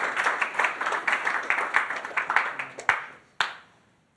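Audience applauding. The clapping dies away about three seconds in, with one last sharp clap just after.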